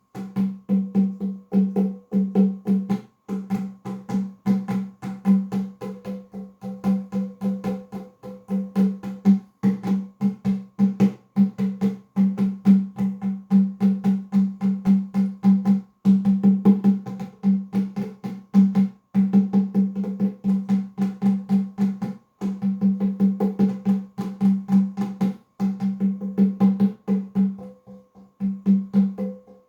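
Nyabinghi drumming: a steady run of hand-drum strikes, several a second, over a ringing pitched drum tone, with short breaks every few seconds.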